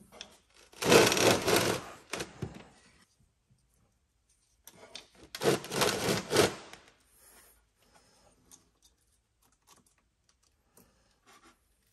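A metal RC bulldozer being dragged and turned on a wooden workbench, scraping loudly twice, each time for about a second and a half. Faint clicks and taps of handling the model follow.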